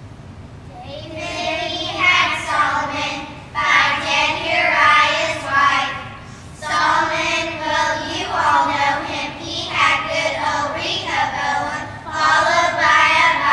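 A class of children singing together in unison, starting about a second in, in short phrases with brief breaks between them.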